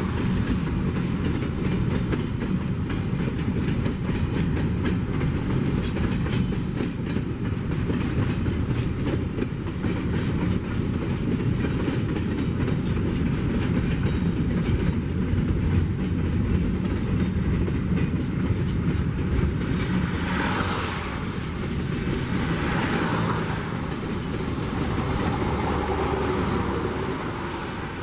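Freight train of loaded container flat wagons rolling past, wheels clattering over the rail joints over a steady rumble. Several swells of rushing hiss come in the last third.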